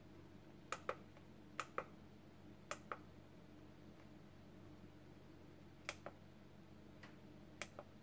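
Faint clicks of the push buttons on a Microlife BP A6 BT blood pressure monitor as its clock is set: five presses, each a quick double click, with a longer pause after the third.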